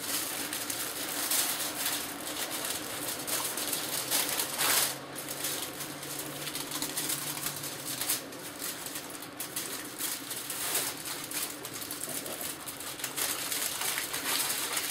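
Aluminium foil crinkling and rustling in irregular bursts as hands roll a baked sponge sheet up inside it, loudest about four and a half seconds in.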